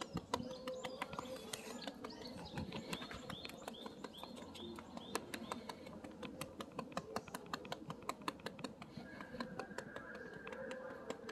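A hand patting and rubbing a tabby cat's back near the tail makes a run of quick soft taps and clicks. From about three to six seconds in, a bird chirps a string of short high calls in the background.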